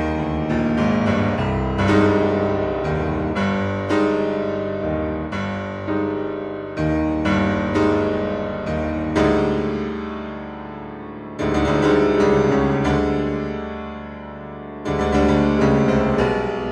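Background piano music: a string of struck chords, each ringing and fading away.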